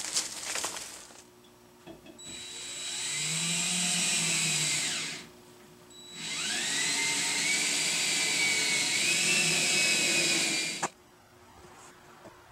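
Power drill running in two bursts, about three and five seconds long, its whine rising in pitch as it spins up at the start of each.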